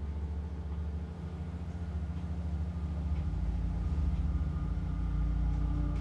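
Low, sustained droning background music that grows slowly louder.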